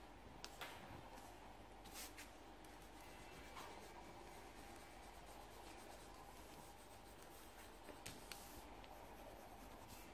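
Faint scratching of a coloured pencil shading on paper, with a few soft clicks of the pencil and card.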